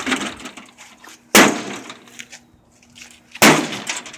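Mallet blows smashing a microwave oven: two hard strikes about two seconds apart, each trailing off over about half a second, with the fading tail of an earlier blow at the very start.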